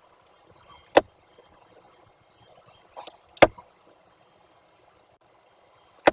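Three sharp knocks about two and a half seconds apart, with faint scratching and rustling between them, as a female peregrine falcon tears at a seagull carcass on the nest ledge.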